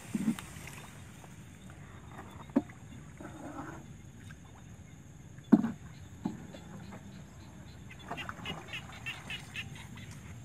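Wooden paddle knocking against the side of a small wooden boat as it is paddled through marsh water, four sharp knocks with a brief splash between. Near the end comes a quick run of short chirping calls, about five a second.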